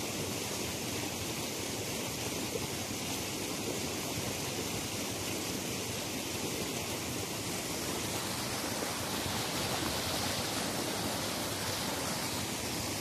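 Fast-flowing stream rushing steadily over rocks and a flooded road, a constant hiss of moving water.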